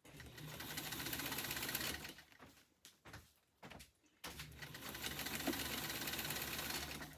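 Electric sewing machine stitching in two runs of steady, rapid stitching, with a pause of about two seconds between them. It is sewing a fabric hinge onto paper pages.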